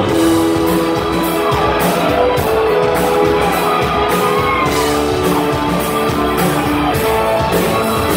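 Rock band playing live at full volume: electric guitars with held and bending notes over a steady drum beat, recorded from among the audience.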